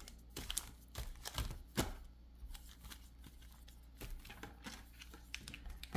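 Foil booster packs being shuffled around and set down on a tabletop playmat: scattered light crinkles and taps, busiest in the first two seconds, then sparse.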